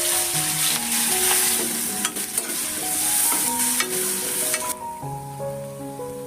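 Food frying in hot oil in a pan, sizzling loudly while being stirred, with scattered sharp clicks of the utensil against the pan. The sizzle drops away sharply about three-quarters of the way in.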